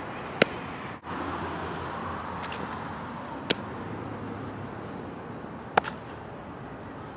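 A softball smacking into leather fielding gloves: a sharp pop about half a second in, a smaller one about midway, and a loud one near the end, over a steady outdoor background noise.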